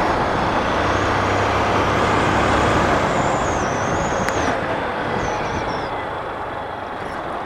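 Motorcycle riding along a highway: steady wind rush on the microphone with the engine and tyre noise underneath, easing off a little in the second half.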